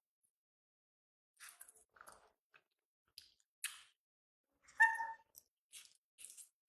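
Baby monkey's mouth noises: scattered short chewing smacks and crackles, starting after a moment of quiet, with one brief squeak about five seconds in.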